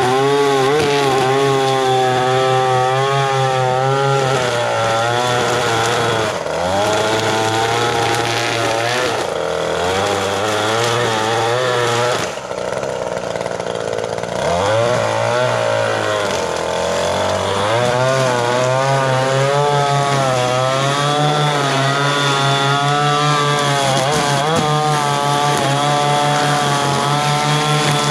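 Echo 2620T two-stroke string trimmer running with .105 line, its revs rising and falling as it cuts grass. The revs sag briefly about six seconds in, and drop further for a couple of seconds around halfway before picking back up.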